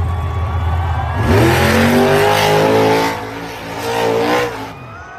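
Engine revving: a low steady engine note, then about a second in it revs up and holds high with a rushing noise. It dips, revs once more, and falls away near the end.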